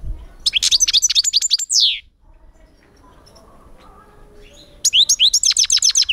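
European goldfinch singing in two quick bursts of rapid, high sweeping notes, the first about a second and a half long and ending in a long falling note, the second starting near the end. A brief low bump comes at the very start.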